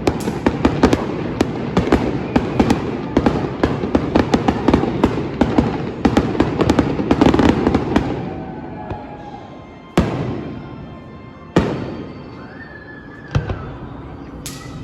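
Fireworks display: a dense, rapid barrage of bangs and crackling for about eight seconds that then dies away, followed by a few single booms spaced a second or two apart.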